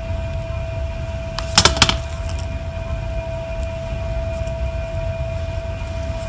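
A hot glue gun set down on a metal tray: a quick cluster of light clicks and knocks a little under two seconds in. Under it, a steady low rumble and a constant mid-pitched tone.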